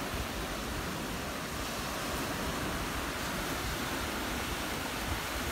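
Steady wash of sea surf and light wind, an even hiss with nothing standing out.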